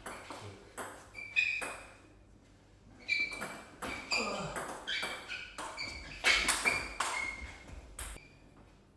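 Table tennis ball being struck by bats and bouncing on the table, making sharp ringing clicks. There are a few taps early on, then a fast rally of about a dozen clicks that stops about a second before the end.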